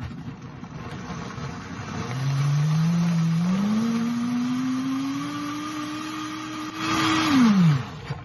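Countertop blender motor blending a cheese-and-chili sauce. It starts suddenly, and its whine climbs in pitch in steps as the speed is turned up, getting loudest near the end. Then it is switched off and the pitch falls away as the motor winds down.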